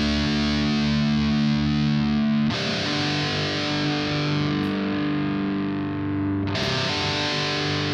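Instrumental passage of a heavy metal song: distorted electric guitar with effects sustaining long chords, which change twice a few seconds apart, with no singing.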